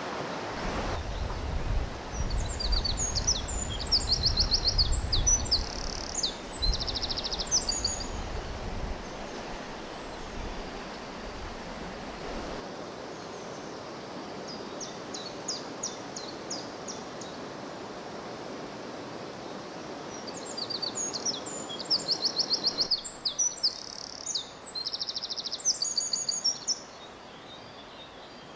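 A songbird singing in several bursts of quick high notes and fast trills, over the steady rush of flowing river water that is strongest in the first half.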